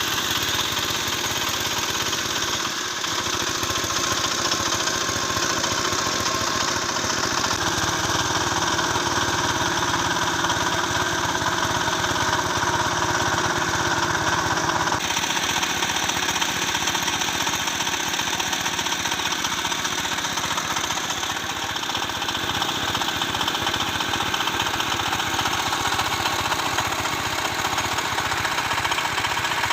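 A small engine running steadily at a constant speed, with no revving. Its tone shifts abruptly about halfway through.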